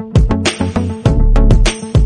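Upbeat background music with a steady beat and heavy bass.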